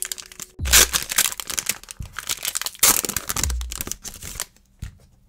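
Foil booster-pack wrapper crinkling and tearing as it is ripped open by hand, in rustling bursts, with a couple of dull thumps; it goes quiet near the end.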